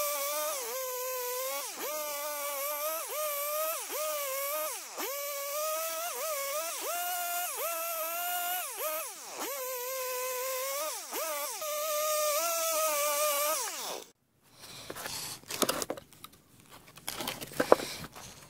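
Gasoline chainsaw running at high revs while cutting through a log; its whine dips in pitch again and again as the chain bites into the wood, then recovers. The sound cuts off suddenly about fourteen seconds in, leaving a few faint knocks.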